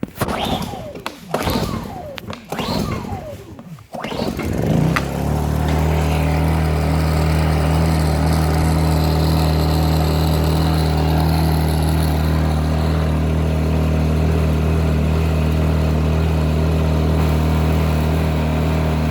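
Small engine of a Blackridge BRG800 800-watt inverter generator being pull-started with several strokes, catching about four and a half seconds in. It then runs at a steady, even speed.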